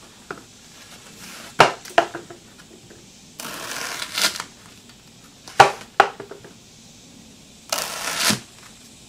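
A large blade cutting through a foam pool noodle on a wooden workbench: two hissing cuts of about a second each, with pairs of sharp knocks between them, which are the loudest sounds.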